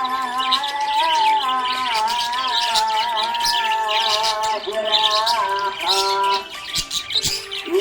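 Budgerigars chirping and squawking in quick, busy bursts over a song with a held, wavering melody.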